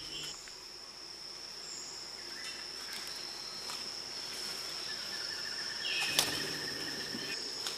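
Rainforest ambience: a steady high-pitched insect trill with several short whistled bird calls scattered over it, and one sharp click-like call a little after six seconds.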